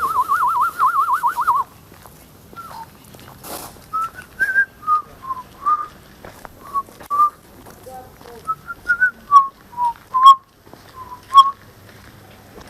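A person whistling: first a fast warbling trill that wavers quickly up and down and stops after about a second and a half. After a pause comes a string of short whistled notes, like a simple tune, with a couple of sharp clicks near the end.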